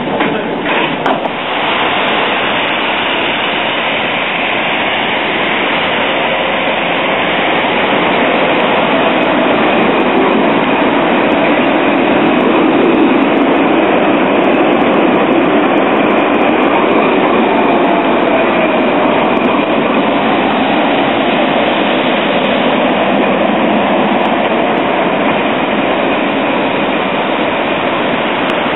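Alstom Citadis trams running through a stop: a steady hiss of wheels and rolling stock with a few knocks in the first couple of seconds and a faint gliding motor whine partway through.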